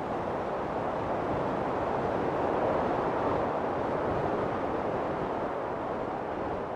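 Steady rush of wind and sea, with no distinct tones or knocks, swelling slightly about halfway through.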